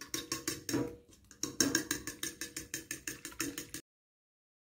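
Metal fork beating eggs in a ceramic bowl, clinking against the bowl in quick strokes of about seven a second. The strokes ease off briefly about a second in, resume, and cut off suddenly near the end.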